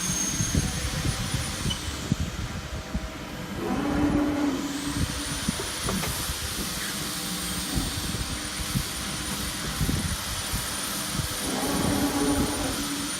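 Electro-hydraulic servo press brake running in a workshop: a steady mechanical hum with a high thin whine and scattered knocks. Twice, once about four seconds in and once near the end, a louder pitched hum rises for about a second as the hydraulics work through a stroke.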